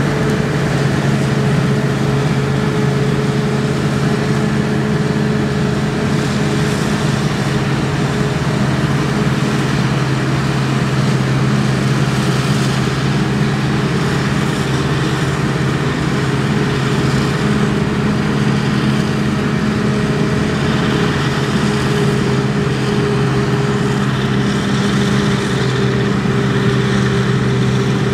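Claas Jaguar 840 self-propelled forage harvester chopping maize, its engine and chopping gear running at a steady working pitch, together with the New Holland tractor pulling the trailer alongside. A loud, even drone with several held low tones.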